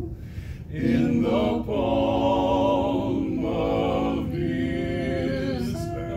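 Male vocal quartet singing a cappella in harmony: sustained chords in several phrases, with a short break about half a second in.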